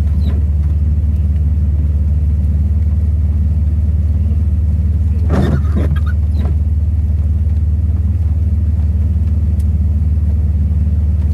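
AWD minivan's engine idling steadily, a constant low drone heard from inside the cabin.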